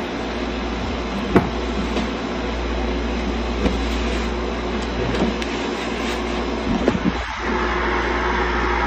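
Steady low hum and hiss, the background noise of a phone recording made in a quiet house, with a few faint clicks.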